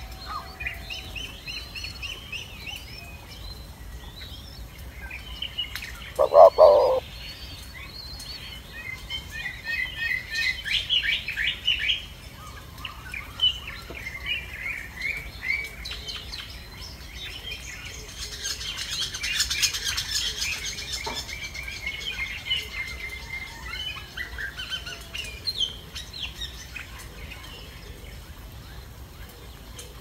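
Birds chirping and twittering in quick high runs of notes. There is one short, louder, lower sound about six seconds in and a rustling hiss around twenty seconds in.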